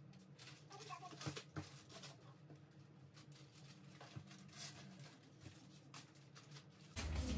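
Faint rustling and light knocks of packs of baby wipes and diapers being handled and stacked, over a steady low hum. Near the end a louder steady noise starts abruptly.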